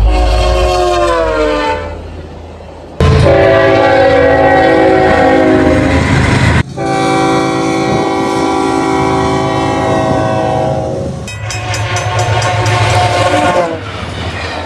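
Several train horn blasts from separate clips cut together. Each is a multi-note chord. The first drops in pitch as the train passes, then come longer steady blasts, each ending abruptly at a cut, over the low rumble of the passing train.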